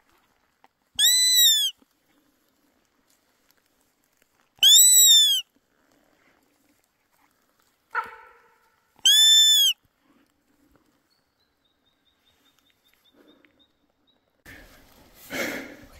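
Three loud, high bleats from a deer call, each lasting under a second and rising then falling in pitch, about four seconds apart. A short, lower sound sits just before the third bleat, and a brief rustle comes near the end.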